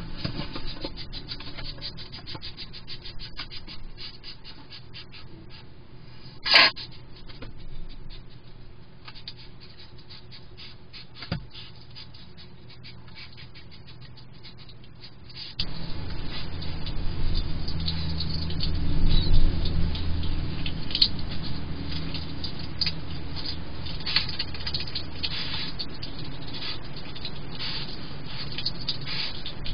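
A hedgehog eating at a feeding-station dish: a run of small crisp clicks and scratches as it crunches food, with one sharp knock about a quarter of the way in. About halfway through the sound becomes suddenly louder and fuller, with close chewing and rustling continuing under the clicks.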